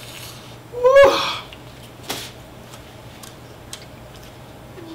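A woman's short wordless vocal cry, rising in pitch, about a second in, then a sharp breathy huff a second later, as she reacts to the burn of very spicy chicken.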